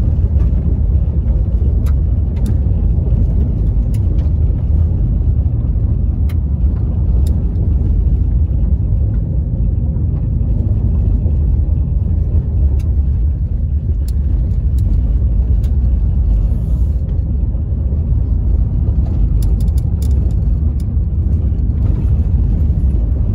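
2019 Honda Ridgeline pickup driving on a gravel road, heard from inside the cab: a steady low rumble of the tyres and road, with scattered ticks.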